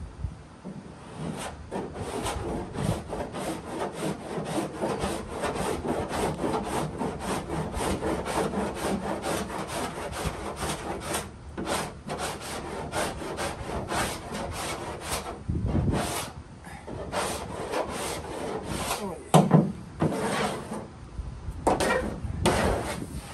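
Cheese-grater body file rasping half-set body filler on a truck's steel hood, quick back-and-forth scraping strokes that shave the filler level. The strokes break off briefly about halfway and again a little later, and a single loud knock comes about two-thirds of the way through.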